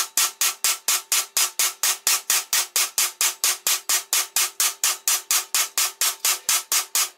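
Hammer blows on a steel T-joint fillet-weld test coupon, struck rapidly and evenly about four times a second, each strike ringing briefly. This is a destructive break test of a MIG weld made with the push technique.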